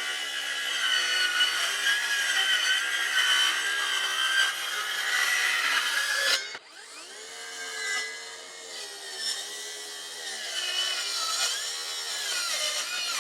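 Handheld power tool motor running under load against wood, its pitch wavering with the load. About halfway through the louder working sound stops abruptly, and the motor runs on more quietly, speeding up and slowing down.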